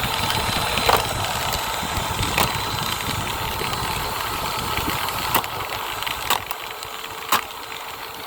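Dirt Devil Powermax Pet vacuum cleaner's motor running steadily, with several sharp knocks spread through it.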